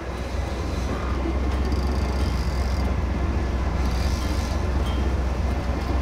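A fishing boat's engine running with a steady low drone, under an even rush of wind and water noise.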